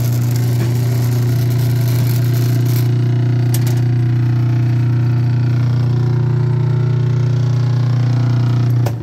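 Skyfood PSE-32HD 3-horsepower bench meat grinder's electric motor running with a loud, steady hum. It stops abruptly near the end.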